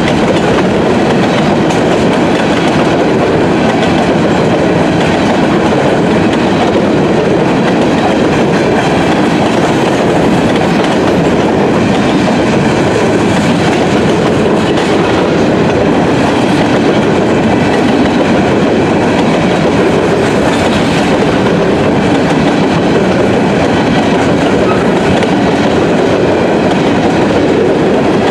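Covered hopper cars of a freight grain train rumbling past, steel wheels running steadily over the rails with a repeated clicking of wheels over rail joints.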